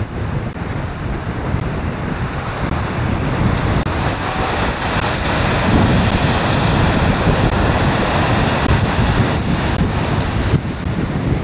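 Small waves breaking and washing up a sandy shore, mixed with strong wind buffeting the microphone as a steady low rumble.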